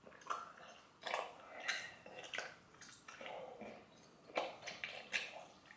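A person chewing an enormous mouthful of chewing gum, dozens of pieces at once, making irregular bursts of wet mouth noise with sharp clicks.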